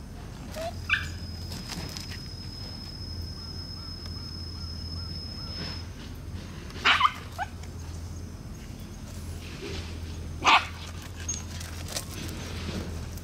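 Shiba Inu puppies giving a few short, sharp barks, the loudest a double bark about seven seconds in and a single bark about ten and a half seconds in.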